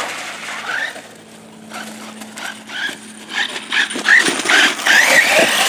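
Brushless electric motor of a 1/8-scale RC monster buggy whining in short rising bursts as it is throttled through mud.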